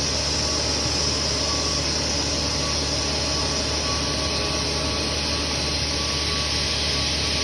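O-M TM2-16N CNC vertical turning lathe running during a turning operation: a steady machine noise with a hiss, a low hum and a thin steady whine.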